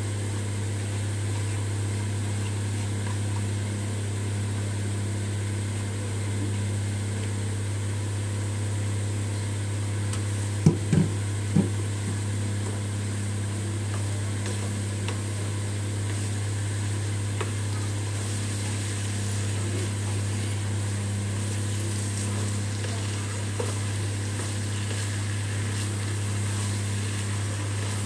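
Green peas frying in masala in an iron kadhai, stirred with a wooden spatula, over a steady low hum. About halfway through, the spatula knocks sharply against the pan three times.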